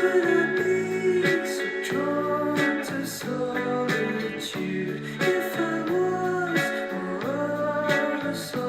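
Music led by guitar, with gliding pitches and a regular beat.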